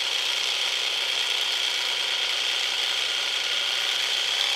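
XU1 angle grinder's electric motor running free with a steady high whine. Its brushes have disintegrated and its bearings are tight, and it is running itself to destruction.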